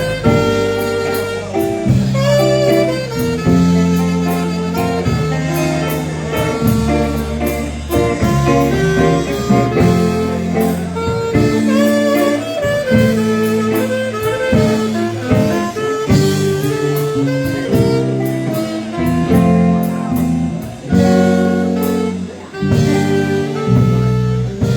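A live dance band playing an instrumental number with a steady beat, a melody line carried over bass and chords.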